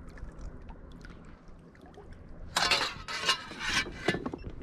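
Water splashing three or four times in quick succession just past the middle, at the side of a kayak where a lake trout is held by the tail in the water for release. Before the splashes there is only light lapping and small ticks.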